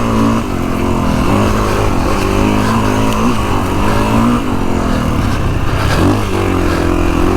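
2022 Kawasaki KX450X's single-cylinder four-stroke engine running under way, its note rising and falling with the throttle as the bike rides through a sand wash.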